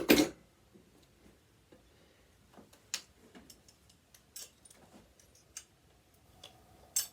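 Scattered sharp clicks and taps from a screwdriver and loose parts being handled while dismantling a sewing machine, the loudest a short clatter right at the start.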